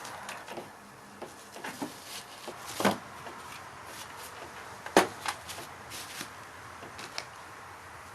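Scattered clicks and knocks of hard objects being handled, with two louder knocks about three and five seconds in.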